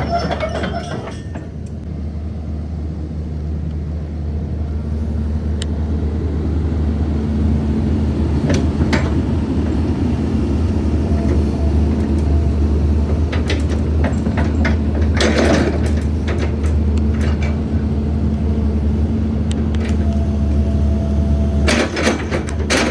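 Komatsu PC210LC-8 excavator's diesel engine running with a steady low drone, growing louder over the first several seconds, with a few clanks of the machine working near the middle and near the end.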